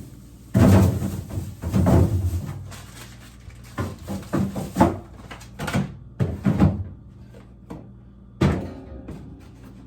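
A series of knocks and thuds from doors and drawers being opened and shut and things being handled, about a dozen in irregular succession, the loudest in the first two seconds.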